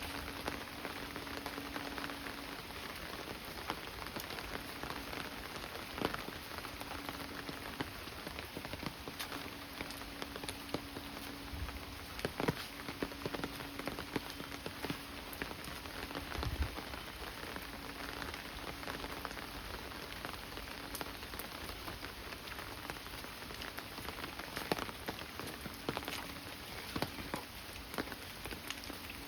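Steady monsoon rain falling, with many scattered sharp drop taps over an even hiss.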